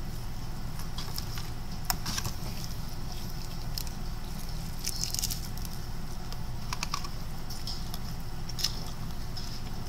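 Close-up eating of Popeyes spicy fried chicken: irregular crunches and crackles of the crisp breading as it is chewed and pulled apart. Two sharp crunches stand out, about two seconds in and near the end.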